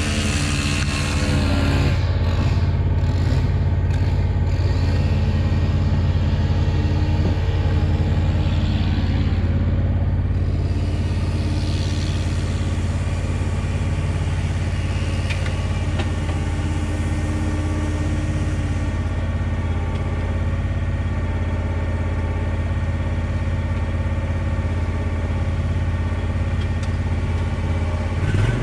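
Commercial lawn mower engine running steadily at a constant speed, a continuous even hum with no change in revs.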